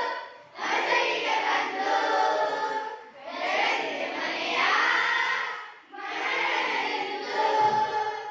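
A group of young voices singing a song together without accompaniment, in phrases of about three seconds with short breaks between them.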